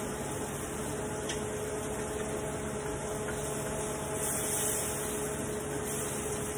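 Seasoning frying in oil in a pan, a sizzling hiss that swells about four seconds in and again near the end as it is stirred, over a steady background hum.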